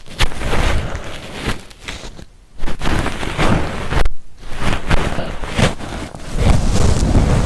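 Ear-cleaning tools rubbing and scraping close against a binaural microphone's ear, a loud, uneven rustling in irregular strokes with two short pauses.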